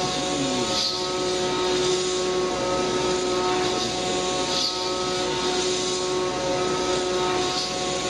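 CNC milling machine cutting aluminium at high speed with an end mill under coolant mist spray: a steady whine of the spindle and cutter over a constant hiss of cutting, with a brief sharper hiss now and then.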